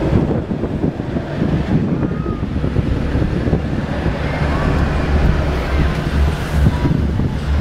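Strong wind buffeting the camcorder microphone: a loud, uneven low rush of wind noise.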